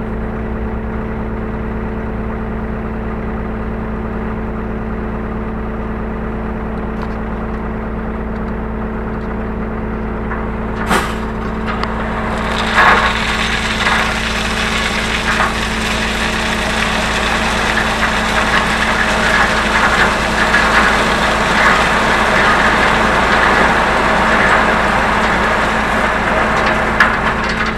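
Hyundai R35Z-9A mini excavator's diesel engine running steadily, heard from inside the cab. A sharp click comes about 11 seconds in. From about 12 seconds a louder rushing, rattling noise with irregular knocks builds up over the engine as the machine works, and it lasts to the end.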